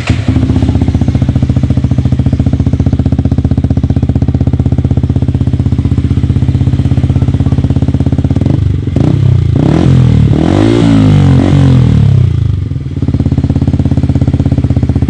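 Motorcycle engine through a Triton Neuro-series stainless steel aftermarket exhaust, idling with a loud, steady, fast-pulsing note, then revved several times in quick rises and falls in the middle before settling back to idle.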